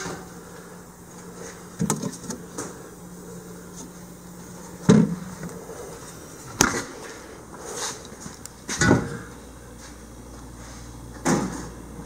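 Knocks and thumps from a dorm mini fridge being handled, its door and plastic interior bumping about six times, over a low steady hum that drops lower about nine seconds in.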